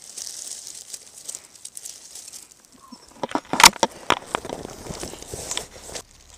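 Dry leaf litter and twigs crunching and rustling as someone moves and steps through the undergrowth, with a cluster of louder sharp cracks about three and a half seconds in.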